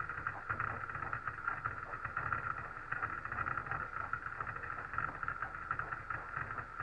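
Steady crackling static hiss on the launch-control radio voice loop, a pause between callouts with a low rumble under the hiss.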